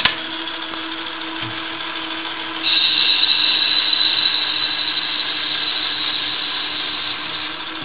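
Hardinge HLV-H toolroom lathe running with its spindle on, a steady hum with a low tone. About three seconds in, a louder high-pitched hiss joins and holds, as the carriage feeds in on a threading pass.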